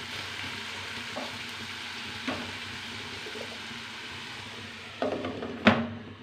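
Diced potatoes and onion frying in mustard oil in a steel pan, a steady sizzle, with a few light scrapes of a steel spoon against the pan. Near the end a sharp metallic clink with a brief ring as the steel lid is set on the pan.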